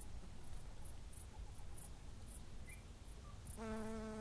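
Faint outdoor ambience with short, very high-pitched insect chirps repeating about twice a second. Near the end, a brief steady held tone sounds for under a second.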